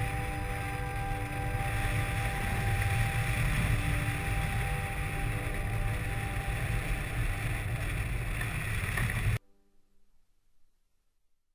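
Airflow buffeting the microphone of a hang glider's keel-mounted camera in flight, a loud steady rumble, with faint background music of long held notes underneath. It cuts off abruptly about nine seconds in, leaving near silence.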